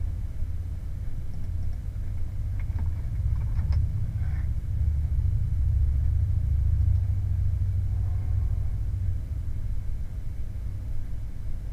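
Steady low rumble that swells a little in the middle, with a few faint keyboard clicks a little over two seconds in.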